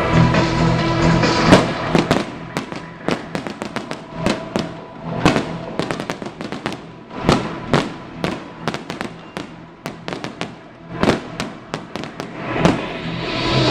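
A fireworks display going off: a dense, irregular string of sharp bangs, several a second, starting about a second and a half in, with a crackling hiss building near the end. Music plays underneath, loudest at the start.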